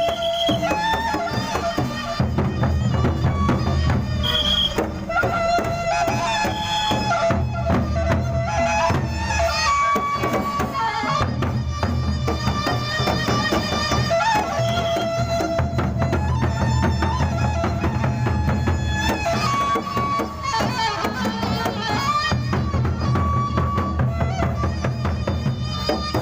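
Gendang beleq ensemble playing traditional Sasak music: big drums and clattering cymbals under a melody of long held notes.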